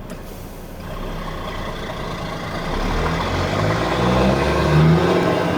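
MAN TGA 18.480 truck's inline-six diesel engine running, its note climbing in pitch and growing louder through the middle as it revs up, peaking near the end.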